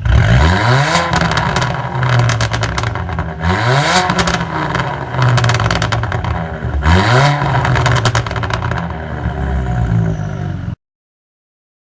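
Alfa Romeo Giulietta 1.8 TBi's turbocharged four-cylinder engine revved three times; as each rev falls away, the exhaust gives a rapid string of pops and crackles, the overrun backfires produced by a tuned crackle map. The sound cuts off suddenly near the end.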